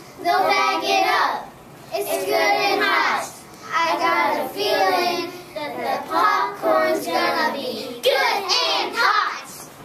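A small group of young children singing together, in about five short phrases with brief breaks between them.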